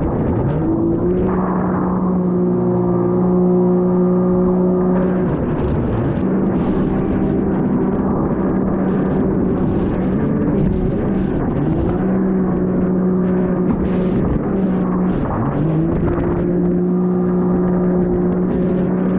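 An engine running hard, rising in pitch and then holding a steady high speed. It eases off briefly and climbs again about three more times.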